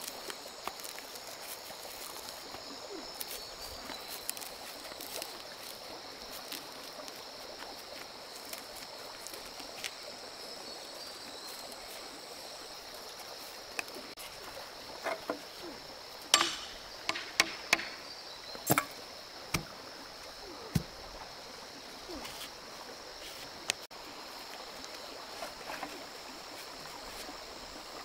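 Forest ambience with a steady high-pitched insect drone, broken a little past halfway by a run of about eight sharp knocks and snaps over a few seconds.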